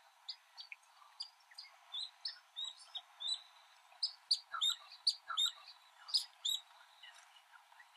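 Small birds chirping: many short, high chirps in quick succession, busiest from about two seconds in until near the end.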